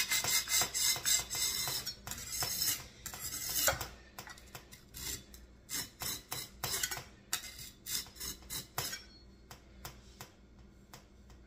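Thai moon knife's steel blade scraped back and forth on a whetstone, held nearly flat to grind the wire burr off the heel. The strokes are fast and dense for about four seconds, then lighter and separate, stopping about nine seconds in.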